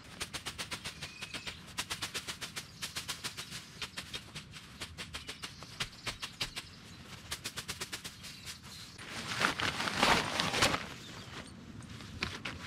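Runs of rapid, sharp clicks at about five a second, stopping and starting, with a louder rustling, scraping noise about nine seconds in that lasts around two seconds.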